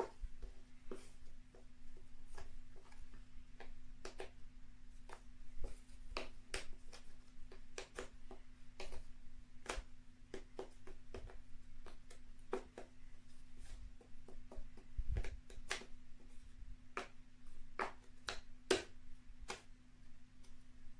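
Small cardboard jigsaw puzzle pieces tapping and clicking on a floor as they are slid about and pressed into place by hand, in irregular, scattered taps. A faint steady hum runs underneath.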